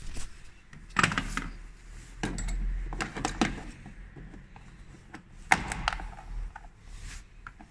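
Hard plastic clicking and knocking as the plastic windscreen cowl trim and its clips on a Renault Megane II are worked loose by hand: a scatter of sharp knocks, several close together in the middle.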